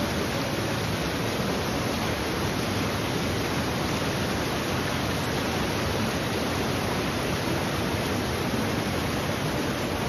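Fast, silty river water rushing through rapids: a steady, unbroken wash of white-water noise.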